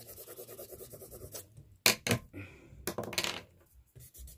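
Graphite pencil scratching on drawing paper in quick, even strokes. About two seconds in come two sharp clicks, the loudest sounds, followed by a few more scratchy strokes.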